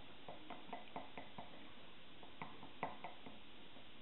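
Chopsticks clicking and tapping against a ceramic dish while stirring soy sauce: a run of light clicks, then two louder knocks just past the middle.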